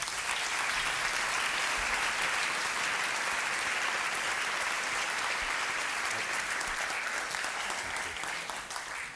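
A large audience applauding steadily, the clapping dying away near the end.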